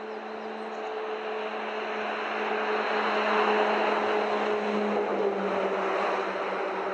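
A motor vehicle passing by: a steady engine hum over a broad rumble that swells to a peak about halfway through and then eases off, its pitch dropping slightly as it goes past.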